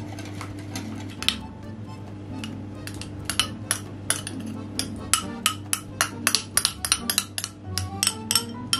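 Metal spoon clinking and scraping against a small glass bowl while melted butter is scraped out of it. It gives a run of sharp clinks that comes thicker after about three seconds, about three or four a second.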